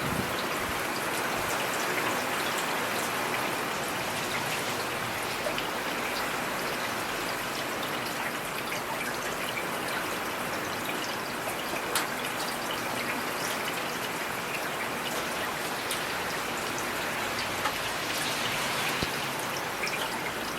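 Steady rainfall: an even hiss of rain with scattered sharper drop ticks, one of them louder a little past the middle.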